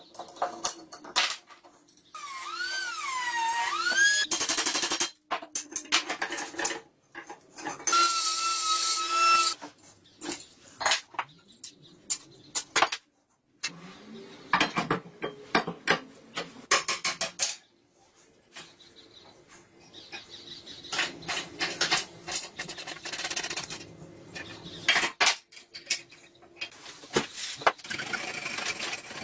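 Workshop sounds of a rusty cast-iron bench vise being taken apart and cleaned: metal clicks and knocks, scraping and rasping on rusty metal, a wavering squeal a few seconds in, and a brief steady whine of a small power tool partway through.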